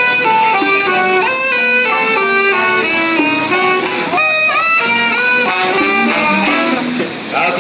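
Five-piece street band playing an upbeat Latin tune: trombone and saxophone carry the melody in sustained horn lines over electric bass, bongos and acoustic guitar, amplified through a small portable amp. The music dips briefly near the end.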